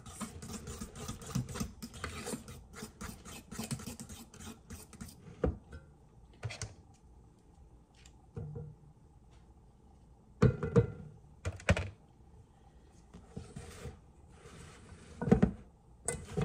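Cake batter being stirred by hand in a mixing bowl, the utensil clicking rapidly against the bowl for about the first five seconds as the lumps are worked out. After that come a few separate knocks and clatters of kitchenware, the loudest about ten seconds in and again near the end.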